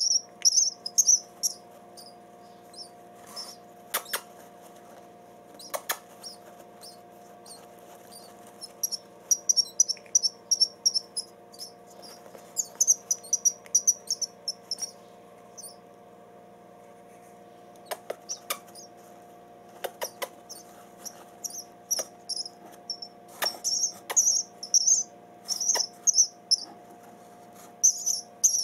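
Three-day-old nestlings, which the keeper takes for starlings, begging for food with rapid high-pitched chirping that comes in bursts and stops for several seconds in between. A few sharp clicks sound from time to time over a faint steady hum.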